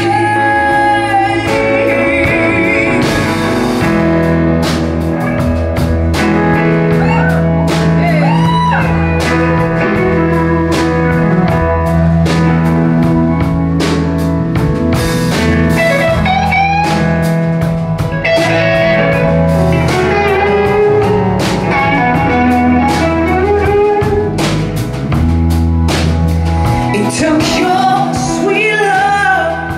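Live band playing a blues-soul song: bass guitar, electric guitar, keyboards and drum kit, with singing heard at times.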